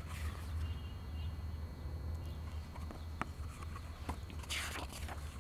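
Quiet open-air ambience: a steady low rumble with a few faint clicks, and a brief rustling hiss near the end.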